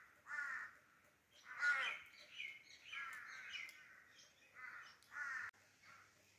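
Harsh bird calls, a crow-like caw repeated several times, some in quick succession, the loudest about two seconds in.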